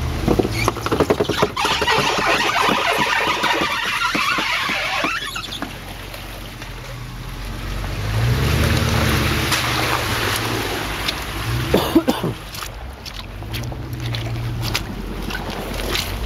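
Jeep Grand Cherokee WJ crawling through a mud hole: its 33-inch Goodyear DuraTrac tires churn and splash through mud and water with a crackling hiss over the first few seconds, then the engine revs up about halfway through and again briefly near the end.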